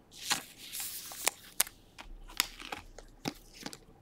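Trading cards and a clear plastic card sleeve being handled: a quick, uneven series of light clicks and crinkles.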